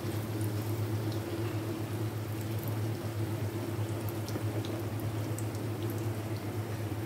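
Chicken box patties shallow-frying in hot oil in a pan: a steady sizzle with scattered small pops, over a low steady hum.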